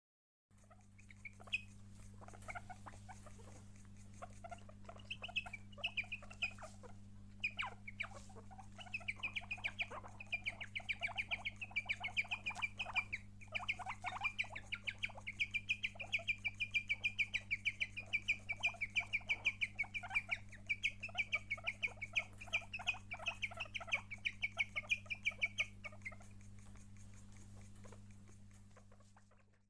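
Guinea pig chirping: a long run of rapid, high chirps, several a second, going on steadily from about a third of the way in until near the end, with scattered chirps before it. A steady low hum lies underneath.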